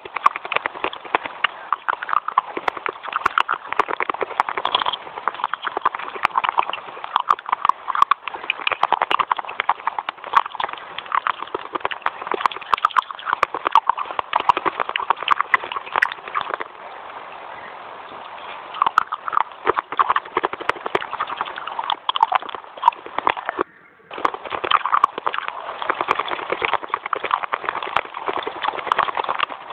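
Close-miked chewing of crunchy white clay sticks: dense, rapid crunching and crackling, softer for a couple of seconds midway and cutting out for a moment about three-quarters through.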